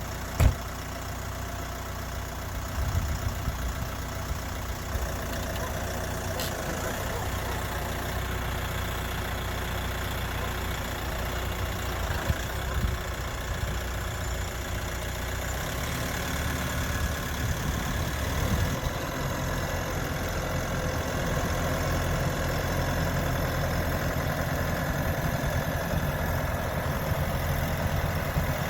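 Kioti RX7320 utility tractor's diesel engine running steadily, with one sharp knock just after the start and the engine growing a little louder through the second half.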